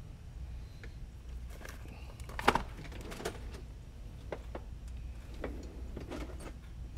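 Scattered clicks and light clatter of small items being handled on a workbench, with one sharper knock about two and a half seconds in, over a low steady hum.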